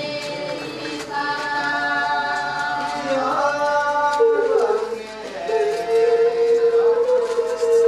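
Voices singing together without accompaniment, the melody stepping and sliding between held notes. From about halfway, one steady high note is held loudly over the singing.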